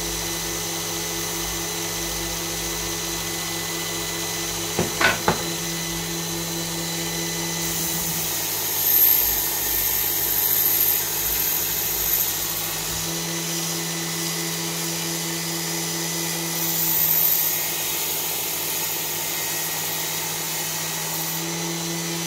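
Work Sharp Ken Onion belt sharpener with its blade grinding attachment running steadily, while a knife edge is drawn across the moving abrasive belt. The hiss of steel on the belt rises during two passes, and there are a few quick clicks about five seconds in.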